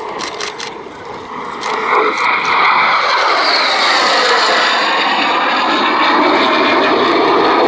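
Jet noise from a Lockheed Martin F-35B Lightning II's single turbofan engine during a display pass. It swells about two seconds in and then stays loud, with a sweeping, whooshing change in tone as the jet goes by.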